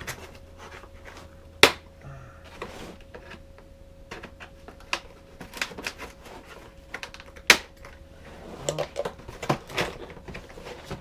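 Long cardboard box being opened by hand: flaps pulled and cardboard rustling, with scattered clicks and snaps, two of them sharp and loud, one under two seconds in and one past the middle.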